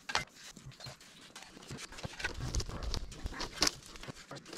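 Irregular light knocks and scrapes, several a second, over a low rumble that grows stronger from about two seconds in.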